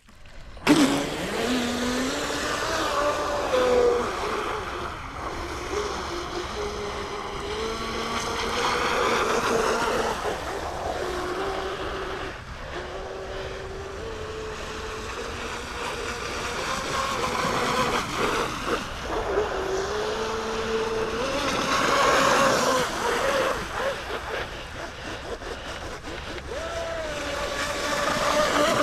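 A Pro Boat Miss Geico RC racing boat's motor running on the water, its pitch rising and falling with the throttle, over water rush and wind noise.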